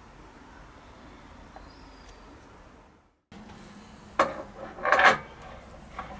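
A sharp knock followed by a short clattering scrape, as of hard objects being handled and knocked together, over a low steady hum.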